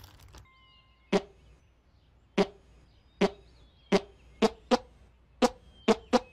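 A plastic zip bag crinkles briefly, then a cartoon soundtrack takes over: a run of about nine short, sharp comic sound effects, coming closer together toward the end.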